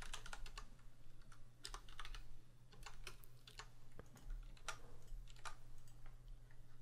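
Computer keyboard typing: quick, irregular runs of keystrokes, faint, over a steady low hum.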